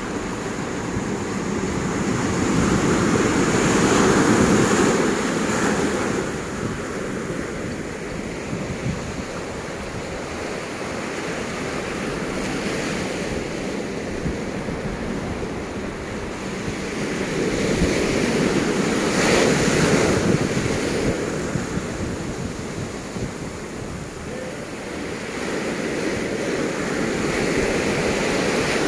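Ocean surf breaking on a sandy beach and rocks, swelling and ebbing in slow waves, loudest about four seconds in, again past the middle and near the end. Wind buffets the microphone underneath.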